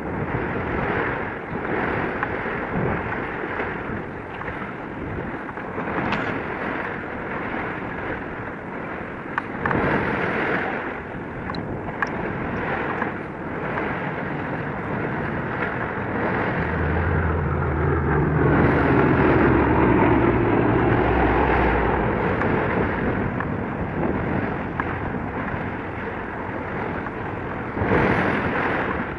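Wind buffeting the microphone over a steady sea-and-harbour rumble. Just past the halfway point a low engine drone swells up, is loudest for a few seconds, then fades.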